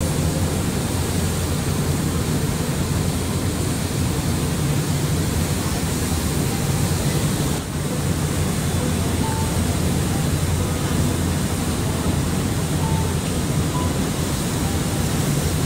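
Steady low drone of a passenger ferry's engines under a continuous rush of wind and water as the boat cruises along.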